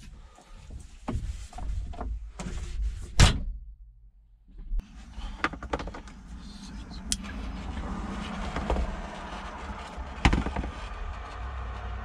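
Handling noises of hand wiring work: scattered clicks and knocks of tools and wires, with one sharp knock about three seconds in. After a brief silence a second later, a steady low rumble runs under further clicks.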